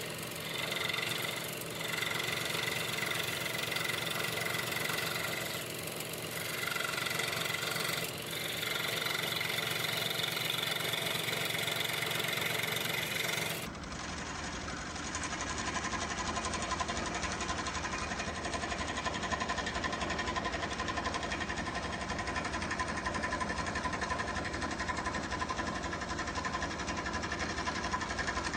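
Scroll saw running, its reciprocating blade cutting through MDF; the sound dips briefly a few times, then changes abruptly about halfway in as another stretch of cutting begins.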